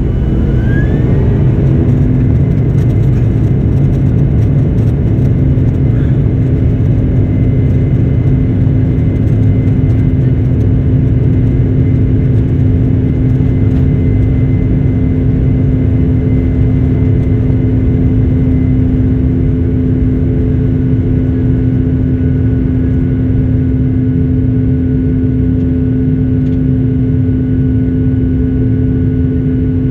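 Jet airliner engines at takeoff thrust, heard from inside the cabin. A whine rises as they spool up in the first second or two, then a loud steady rumble with a held whine continues through the takeoff roll and climb-out.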